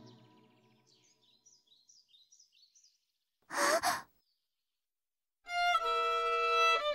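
A girl sighs once, a short breathy sound about halfway through, after a quiet stretch with faint high chirps. Near the end a violin starts playing long held notes.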